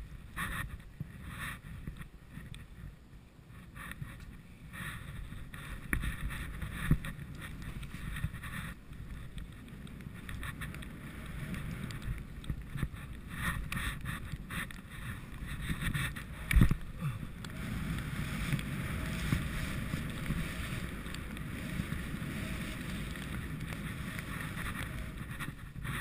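Skis hissing and swishing through deep powder snow in an irregular rhythm of turns, with a couple of sharp knocks about seven and sixteen seconds in, then a steadier hiss over the last several seconds.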